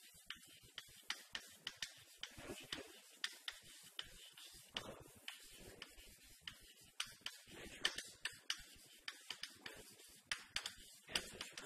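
Chalk tapping and scratching on a chalkboard while writing: a quick, irregular run of sharp little clicks, several a second.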